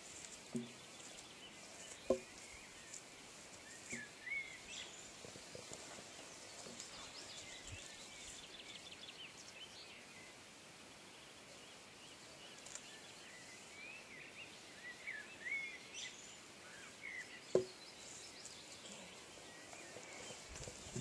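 Quiet outdoor background with scattered faint bird chirps, and two sharp knocks, one about two seconds in and one later on.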